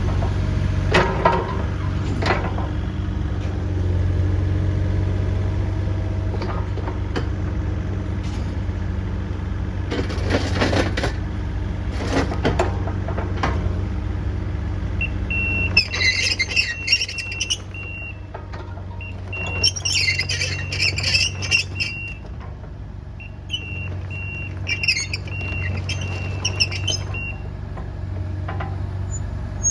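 Kubota KX040-4 mini excavator's diesel engine running steadily, with a few sharp knocks in the first half. From about halfway, the travel alarm beeps in runs of high tones, with squeaking alongside.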